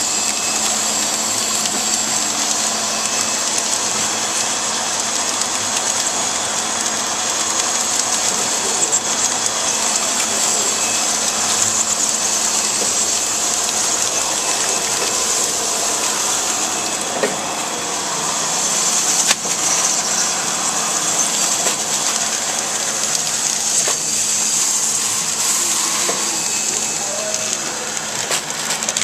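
Horizontal flow-wrapping packaging machine running steadily, sealing product bundles in clear plastic film: a constant high hiss over a low hum, with a couple of brief sharp clicks about two-thirds of the way through.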